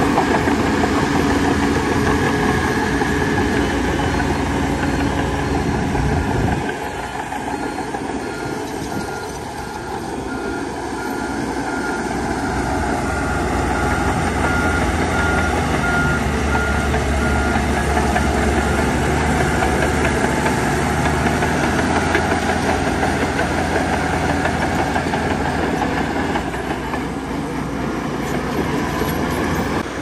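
Heavy diesel earthmoving machinery running steadily, the engine note dropping back about six seconds in and then building up again. Midway through, a reversing alarm gives a run of short beeps, about two a second.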